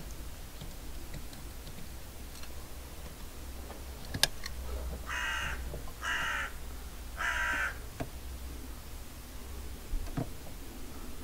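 A bird calling three times in quick succession, each call about half a second long. A sharp click comes about a second before the first call, with a few fainter ticks later.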